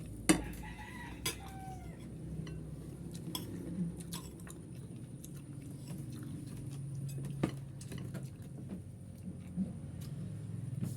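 Eating at the table: chewing, with a few sharp clinks of cutlery against plates, the loudest just after the start.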